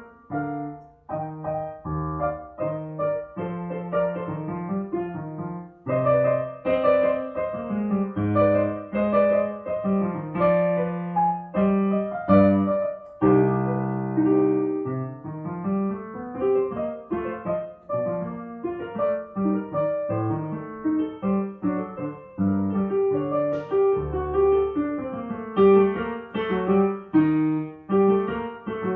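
Solo piano music: a polonaise played on a digital piano, with a melody over chords in the left hand and a held chord about halfway through.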